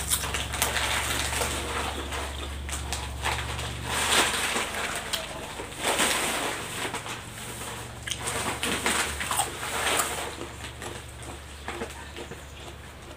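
Close-miked eating: crisp, juicy crunching and wet mouth clicks as a person bites and chews pieces of a crisp raw green vegetable, with the loudest crunches about four and six seconds in. A steady low hum sits underneath and fades partway through.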